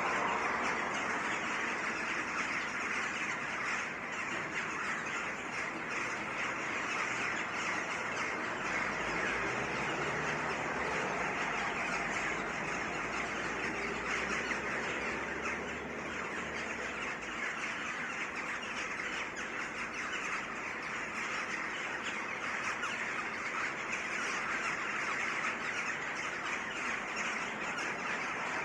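A dense chorus of many birds in a tree, chattering, chirping and squawking continuously. A low rumble, like passing traffic, sits under it from about eight to seventeen seconds in.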